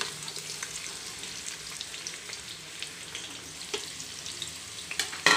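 Sliced onions sizzling in hot oil in a nonstick pot: a steady frying hiss full of small crackles. A couple of sharp knocks near the end, the second the loudest sound.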